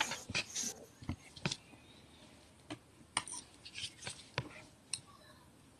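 A few faint, scattered clicks and small knocks at irregular intervals.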